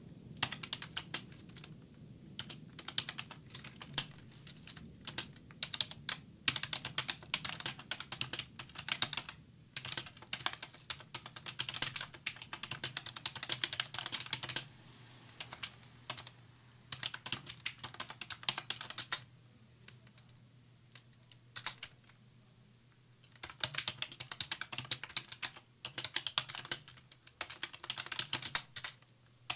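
Typing on a computer keyboard: fast runs of key clicks in bursts with short pauses, the longest lasting a few seconds past the middle. A faint steady low hum sits underneath.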